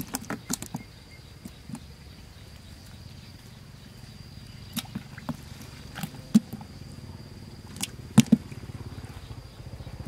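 A steady high insect drone with scattered sharp clicks and knocks, the loudest about six and eight seconds in, and a low pulsing engine hum coming in near the end.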